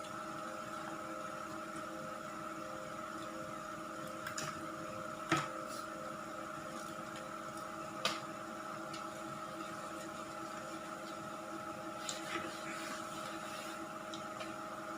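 A steady hum made of several fixed tones, like a small electric motor or appliance, with a handful of brief sharp clicks: one about four seconds in, a louder one a second later, one about eight seconds in and a quick pair near the end.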